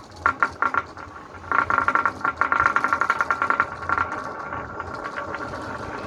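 Marbles clattering and rolling along a marble-run track. A few quick clicks come about half a second in, then a dense run of rapid clicks for about two seconds, which settles into a softer, steady rattle.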